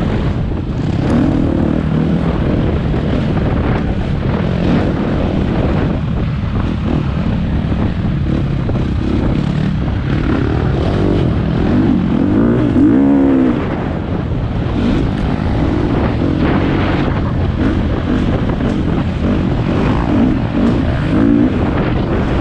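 Four-stroke single-cylinder dirt bike engine ridden hard along a trail, its pitch rising and falling over and over as the throttle opens and closes through the turns, over a steady low rumble.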